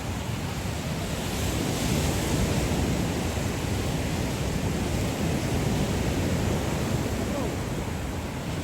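Caribbean surf washing up on a sandy beach, a steady wash that swells a little about two seconds in, with wind rumbling on the microphone.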